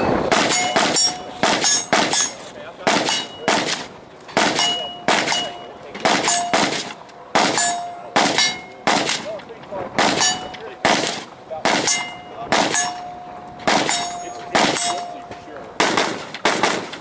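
Rapid gunfire in strings, some thirty shots at two to three a second, many followed by the ring of steel targets being hit.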